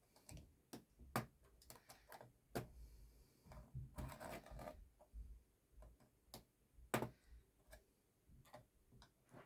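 Scattered sharp plastic clicks and scraping as a flat-blade screwdriver pries up a Dell Inspiron N5010 laptop keyboard, popping its retaining clips. There is a longer scraping stretch about four seconds in, and the loudest clicks come about a second in and near seven seconds.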